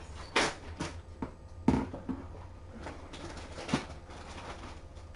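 A few short, sharp knocks and clatters at irregular spacing, over a steady low hum.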